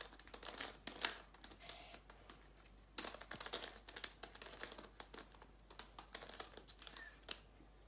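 Ivy cube, a plastic corner-turning twisty puzzle, being twisted quickly to scramble it: a run of faint, irregular plastic clicks and clacks, easing off briefly about two seconds in.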